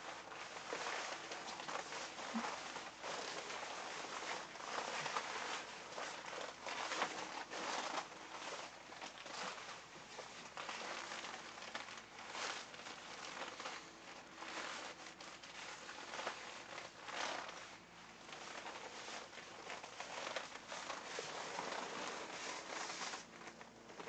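PVC and sauna-suit fabric rustling and crinkling as the wearer moves and adjusts the outfit, in uneven swishes of varying loudness.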